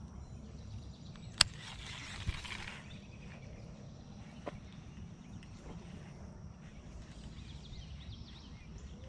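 Outdoor background noise with a low, steady rumble. About a second and a half in comes a sharp click followed by a brief hiss, and a fainter click comes near the middle.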